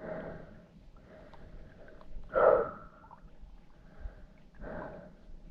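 A person breathing heavily close to the microphone: three loud breaths about two seconds apart, the middle one the loudest.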